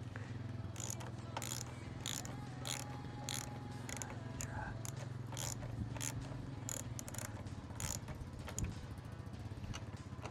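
Hand tool clicking in short, irregular strokes as a screw on the motorcycle's fuel tank mount is worked loose, over a steady low rumble of wind on the microphone.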